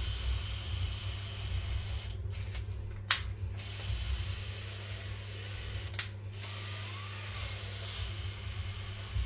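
Makita 18V cordless drill turning a tap slowly into a hole in cast iron, its motor running at low speed with a high whine. The motor stops briefly about two seconds in and again around six seconds, with sharp clicks near those stops.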